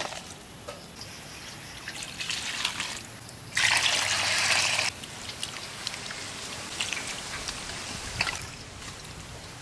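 Water trickling and splashing as small freshly caught fish are washed by hand, with a louder pour of water lasting about a second near the middle.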